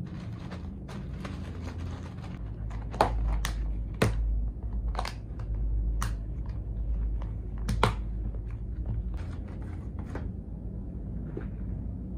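Small plastic bags of beads rustling and crinkling as they are packed and pressed into a clear plastic box, with sharp plastic clicks and taps, the loudest about three, four and eight seconds in, over a low rumble.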